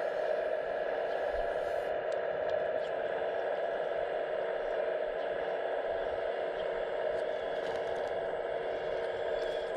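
Electric hydraulic pump of an RC model excavator running with a steady whine, with a few faint clicks.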